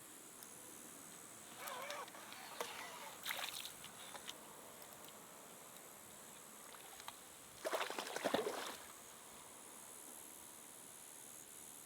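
Water splashing and sloshing in a few short bursts, the loudest about eight seconds in, over a steady faint hiss.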